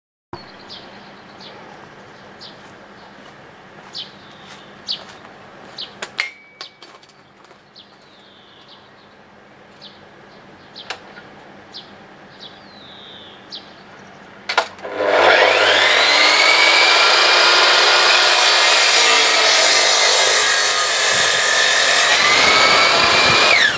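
Electric mitre saw starting about fifteen seconds in with a rising whine, then running loud and steady as it cuts a timber beam. Before it, faint bird chirps and a few light clicks over quiet outdoor background.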